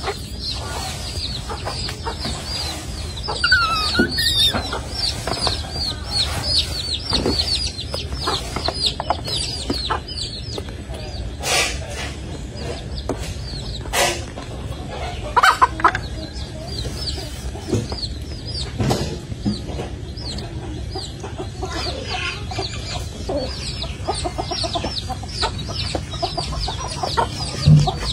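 Chicks peeping in a steady stream of short, high, falling chirps, with a few sharp knocks in between.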